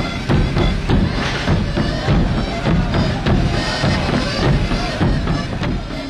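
Street band of large rope-tensioned bass drums (bombos) beating a steady rhythm under a diatonic button accordion playing a traditional tune.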